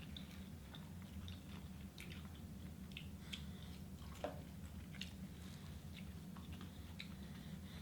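Close-miked chewing of food: soft irregular mouth clicks and smacks, one a little louder about four seconds in, over a steady low hum.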